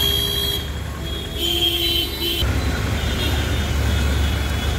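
Heavy stop-and-go road traffic: vehicle horns honk twice, briefly at the start and again about a second and a half in, over the steady running of engines, whose low rumble grows louder about halfway through.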